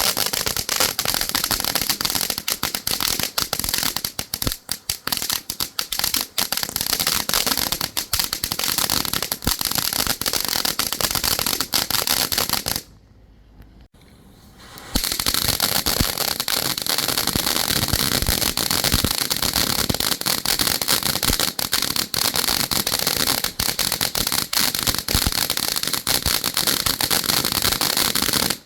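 Ground fountain firework spraying sparks with a dense, continuous hissing crackle. It stops about halfway through, then starts again about two seconds later and runs until it cuts off suddenly.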